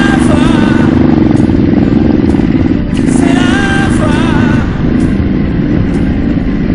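Off-road motorcycle engine running steadily as the bike rides down a leafy forest trail, mixed with a pop song's backing track whose wavering melodic phrase comes twice, near the start and about three seconds in.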